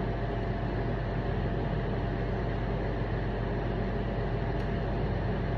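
Steady background hum with an even hiss, a constant mechanical drone that does not change.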